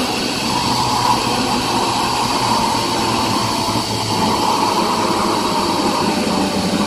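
Zipline trolley pulleys running along the steel cable during a ride: a loud, steady whirring rush.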